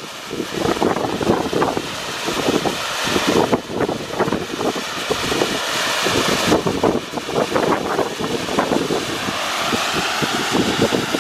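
Volcanic fumarole jetting steam from a sulphur-crusted vent: a loud, steady hissing roar that grows brighter for a few seconds in the middle.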